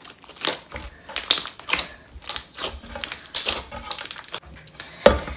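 Thick, clear slime packed with jelly cubes being squished by hand, giving irregular wet clicks and pops as air bubbles in it are squeezed out.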